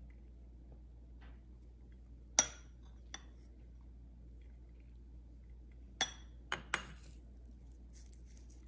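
A metal spoon clinking against dishware in a few short, sharp, ringing clinks. There is one loud clink about two seconds in and a lighter one just after, then three more in quick succession about six seconds in.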